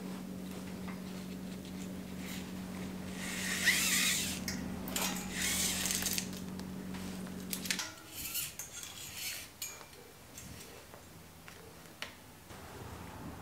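Hands working a bicycle's brake lever, shifter and cables on a flat handlebar: scraping and rattling for a few seconds, then scattered metal clicks and clinks. A steady low hum runs underneath and cuts off about eight seconds in.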